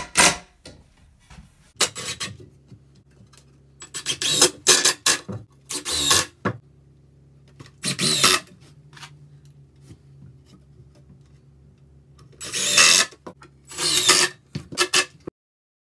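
Cordless drill driving deck screws into 2x4 pine lumber, in short bursts of about a second with pauses between them.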